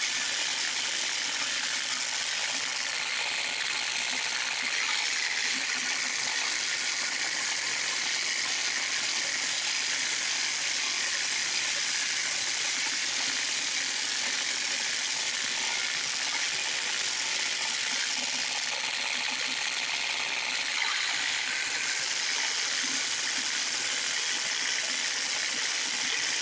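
Ryobi 1632 drum sander running steadily as it sands a white ash board, together with a shop vac pulling off the dust: a continuous even machine hiss.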